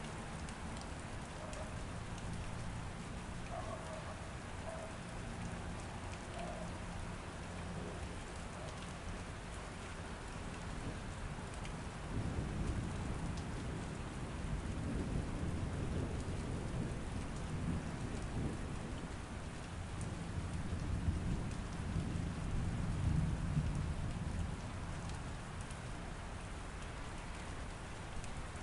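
Steady rain falling, with a long low roll of thunder that builds a little under halfway through, swells twice and fades away near the end.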